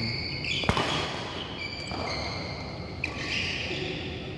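Court shoes squeaking on a badminton court's synthetic mat as players move, with one sharp hit about a second in.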